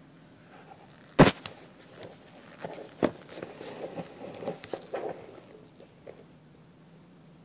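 Handling noise: a sharp knock about a second in, then a run of smaller taps and rustles for a couple of seconds, fading out with one last light tap.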